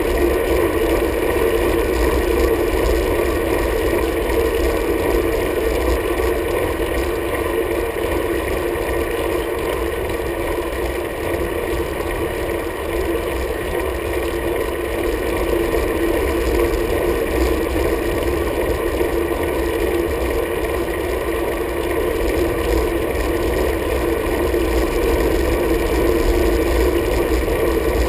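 Steady wind and road rumble on a road bike's handlebar-mounted camera while riding uphill: a constant muffled rush with a low rumble and no clear events.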